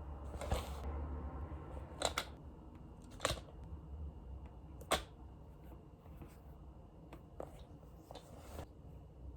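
A few sharp clicks and taps over a low steady hum: four louder ones in the first five seconds, one of them doubled, then fainter ones.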